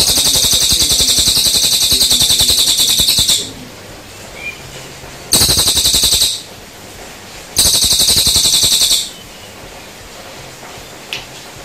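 Cililin songbird singing in high-pitched, very rapid buzzing trills. There are three bursts: a long one of about three and a half seconds, then a short one of about a second, then one of about a second and a half.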